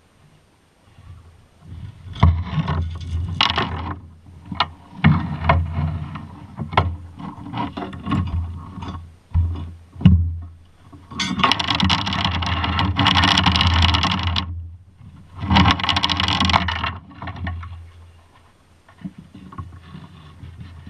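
Boat under way on open water: a low, steady motor hum with uneven surges of wind and water noise, loudest past the middle, and a few sharp knocks.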